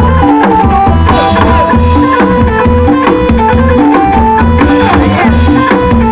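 Thai procession band (wong hae) playing loud amplified music through loudspeakers: a driving drum beat and heavy bass under long held melody notes.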